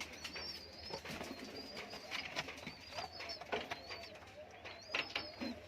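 Loft pigeons calling: repeated thin, high wavering squeaks with fainter low coos, and scattered light clicks.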